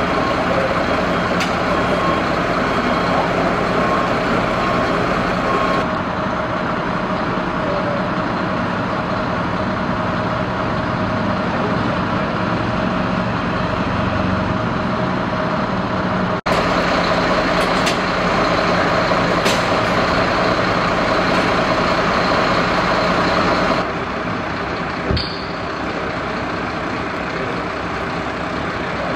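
Fire engines' diesel engines running steadily in a dense, even hum. The sound changes abruptly about six, sixteen and twenty-four seconds in.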